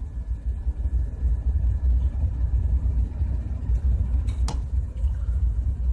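Steady deep rumble of background machinery, with one sharp click about four and a half seconds in as small metal compressor valve plates are handled.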